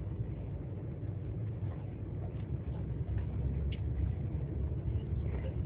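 A car drives slowly over a snow-covered road, heard from inside the cabin: a steady low rumble of engine and tyres.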